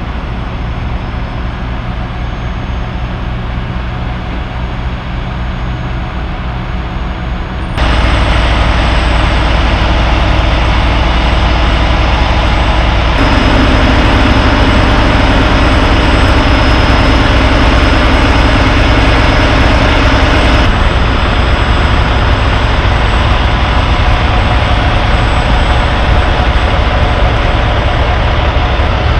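Heavy diesel engines of lowbed semi trucks running steadily: a deep, even rumble with no revving. The sound jumps louder about eight seconds in and changes character again at later cuts.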